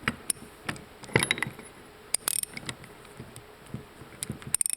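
Socket wrench working a 15/16-inch jam nut loose on a steering gear assembly: scattered sharp metal clicks and clinks at irregular intervals, with a quick run of clicks near the end.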